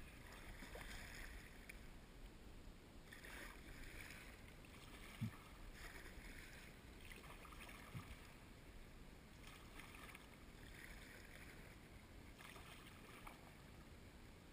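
Faint kayak paddle strokes: the blades of a double-bladed paddle splashing into the river water, one stroke every couple of seconds. Two soft knocks fall in between, about five and eight seconds in.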